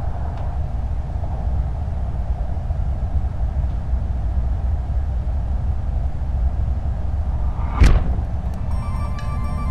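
Deep, steady rumbling drone sound effect that starts abruptly. A sharp hit comes just before 8 seconds in, followed near the end by choppy, glitchy electronic tones.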